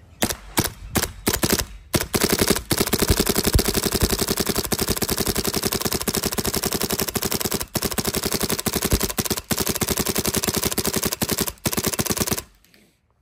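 WGP Karnivor Autococker paintball marker firing in uncapped ramping mode: a few single shots, then a very fast string of shots lasting about ten seconds, broken twice by brief pauses, that cuts off near the end.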